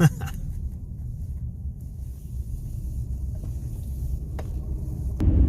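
Steady low road and drivetrain rumble inside the cab of a moving 2018 Chevy Silverado, with a single faint click about four seconds in.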